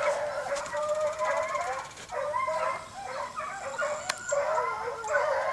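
A pack of hunting hounds bays on a bobcat's trail. Several dogs' voices overlap in a continuous, wavering chorus.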